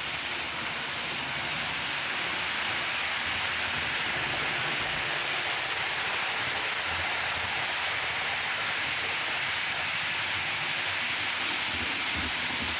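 Model passenger train running through on the layout's track: a steady hiss and rumble of wheels on rails that fades out near the end as the train clears.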